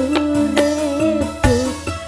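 Live campursari band music: a held, wavering melody line over regular drum hits.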